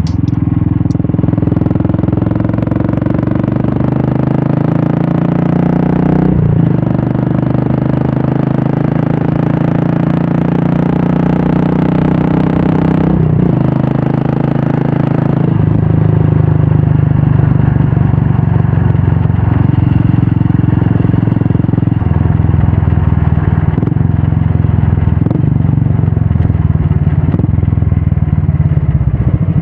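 Royal Enfield Classic 350's single-cylinder engine running through an aftermarket Red Rooster stainless-steel exhaust while riding, a steady loud note. The note breaks briefly about six and about thirteen seconds in, then settles at a new pitch.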